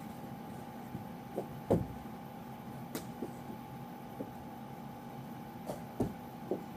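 Scattered knocks and thumps from a knee hockey stick and ball in play, the loudest a little under two seconds in and again at about six seconds, with a sharp click near three seconds. A steady hum runs beneath.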